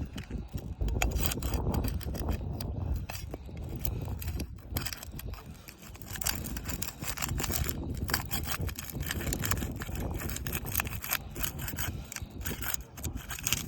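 Putty knife scraping and prying under asphalt roof shingles, breaking the adhesive seal strips, in a steady run of gritty scrapes and clicks.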